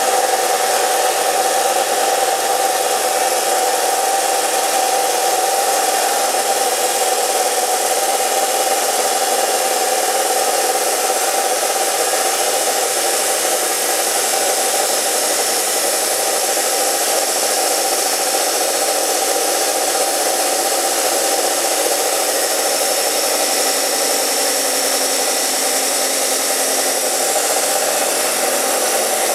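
Steel cut-off saw cutting through steel: a steady high whine over a dense grinding hiss, running unbroken at an even level.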